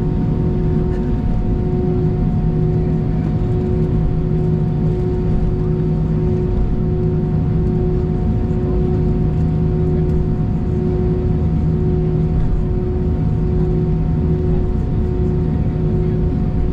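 Steady hum inside the cabin of an Airbus A319 taxiing, its engines and air conditioning holding a few constant tones over a low rumble with no change in power.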